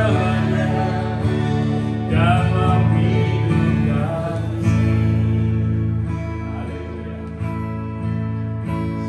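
Live praise-and-worship music: acoustic guitars strummed under a small group singing, the sound slowly dying down over the last few seconds.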